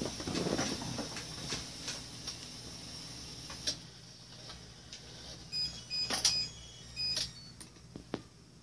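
Handling rustle and a few clicks, then short, high electronic beeps in three quick clusters about five to seven seconds in, from a Sky Viper Fury toy drone and its controller powering up and pairing.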